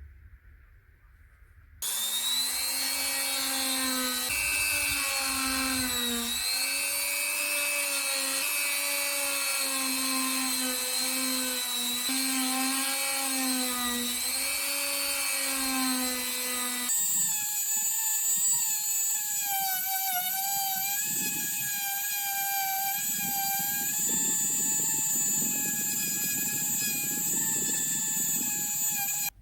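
Electric power tool motor running with a steady whine that starts suddenly about two seconds in, its pitch wavering slightly. About halfway through, the sound switches abruptly to a higher-pitched whine that holds steady to the end.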